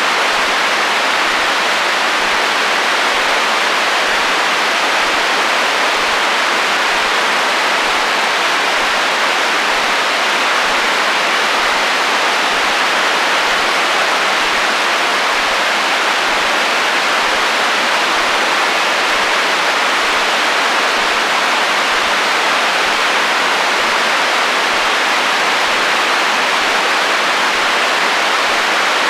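Radio receiver static: an even, unbroken hiss of interference noise with no station or voice coming through.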